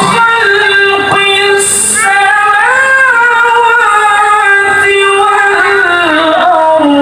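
A solo voice reciting in melodic Quranic tilawah style, holding long notes with ornamented turns between phrases. The pitch steps down to a lower held note near the end.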